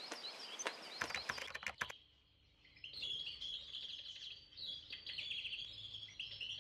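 Birds chirping and singing, with a run of sharp keyboard key clicks over the first two seconds as a word is typed. The birdsong drops away briefly, then returns with many quick chirps.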